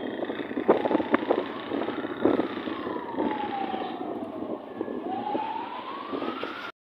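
An emergency-vehicle siren wailing, sweeping slowly up, down and up again, over busy street traffic noise with a few sharp knocks. The sound cuts off abruptly near the end.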